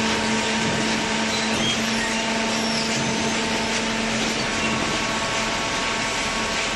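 Industrial cardboard shredder line running steadily: a constant machine hum with a steady low tone and a rushing, vacuum-like noise over it.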